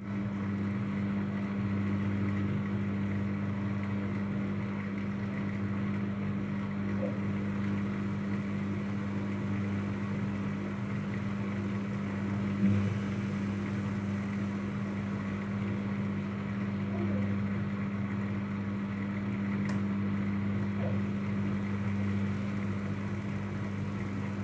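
Daewoo DWD-FT1013 washing machine's motor running with a steady hum as the drum turns to balance the laundry before the spin cycle, with one short knock about halfway through.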